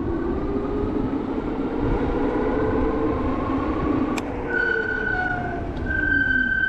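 E-bike hub motor whining and gliding in pitch over wind and road noise, then about four and a half seconds in the disc brakes squeal: a loud, steady, high-pitched squeal with a short break, still going at the end. The squeal persists despite new brake pads and cleaned, sanded rotors.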